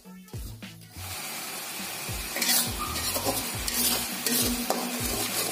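Blended chili paste (shallots, garlic, chilies, tomato) sizzling as it is sautéed in a metal wok, with a metal spatula scraping and stirring it across the pan roughly twice a second. The sizzle sets in about a second in and the spatula scrapes start a little after two seconds.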